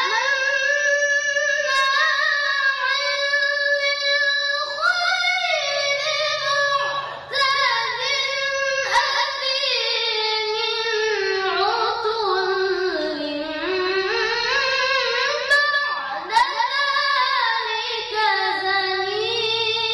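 A boy's voice reciting the Quran in the drawn-out, melodic tilawah style. It is one long ornamented line that starts abruptly after a breath, sinks lower in pitch around the middle and climbs back up.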